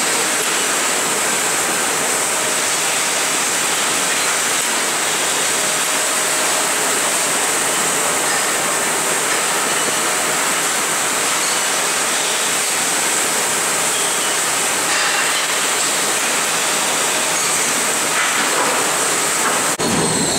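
Steady hissing machine noise of milking parlor equipment running, with no change in rhythm or pitch.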